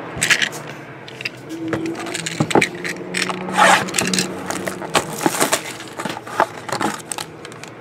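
Shrink-wrapped cardboard trading-card hobby boxes being handled: slid off a stack, turned over and set down on the table, in a string of short scrapes, taps and plastic-wrap crackles.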